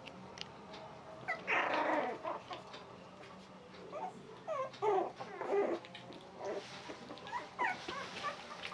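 A litter of young puppies whining and squeaking in many short, high-pitched calls, with a brief rougher stretch about a second and a half in.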